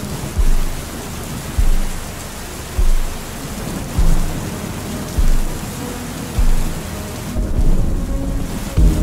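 Steady rain hiss mixed with a slow lofi beat: a deep kick drum about every 1.2 seconds and faint sustained music tones underneath. The high rain hiss thins out briefly near the end.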